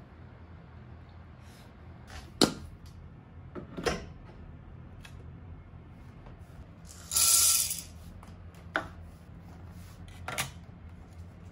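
Tableware and coffee things being handled: a few scattered clicks and knocks, the loudest a sharp one about two and a half seconds in, and a short hiss of under a second just past the middle, over a low steady hum.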